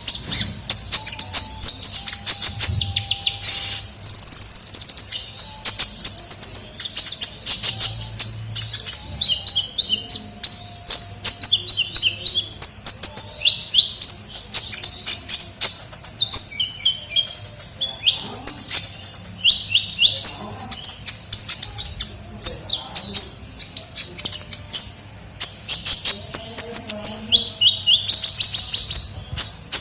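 Sunbird (the 'kolibri ninja' of Indonesian bird-keepers) singing a nonstop run of high, sharp chirps and quick trills, as played for a lure call to draw wild birds in.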